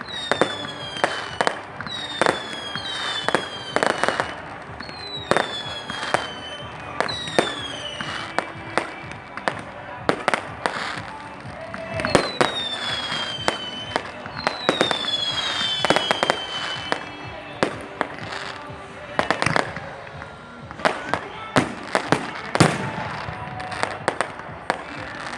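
Fireworks display: a dense run of sharp bangs, with many short whistles falling in pitch, bunched in the first third and again about halfway through.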